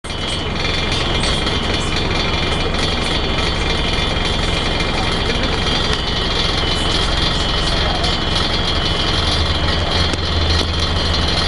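Scania L113CRL bus's rear-mounted 11-litre six-cylinder diesel running at idle, heard from inside the saloon as a steady low hum, with a steady high whine above it.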